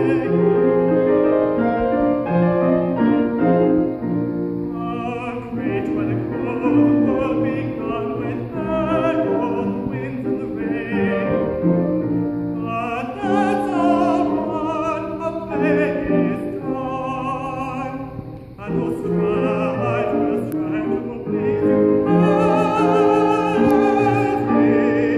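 Male classical singer singing an English art song with vibrato, accompanied by a grand piano, with a short pause between phrases about three-quarters of the way through.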